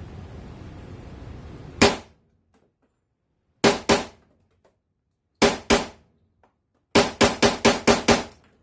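.357 SIG direct-impingement AR pistol with an 8.5-inch barrel firing: a single shot, two quick pairs, then a rapid string of about six or seven shots. The gun cycles every round fed from a Glock .40 magazine fitted with a TorkMag insert, which the shooter takes for a good run after earlier feeding problems.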